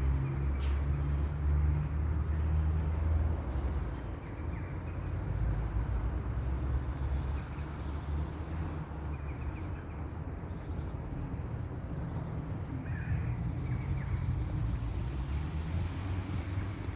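Outdoor ambience dominated by a steady low rumble, with a few faint, short bird chirps, the clearest a little after the middle.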